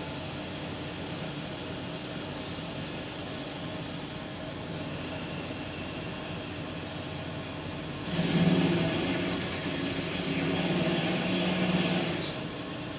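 Metal-cutting band saw running with a steady motor hum. About eight seconds in it turns louder and harsher, with a high hiss over the hum, as the blade works through the metal stock for about four seconds, then drops back to the plain running hum.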